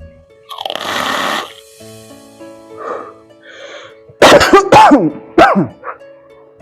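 A person with a phlegmy chest cough: a long raspy throat-clearing, then a burst of several loud, harsh coughs about four seconds in.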